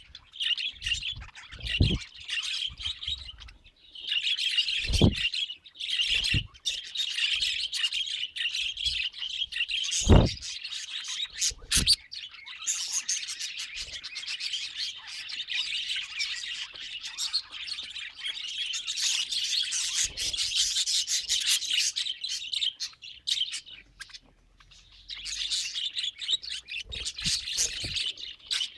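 Budgerigars chattering and chirping almost without pause, in a long run of quick high notes with a few short breaks. A few dull thumps come through, the loudest about ten seconds in.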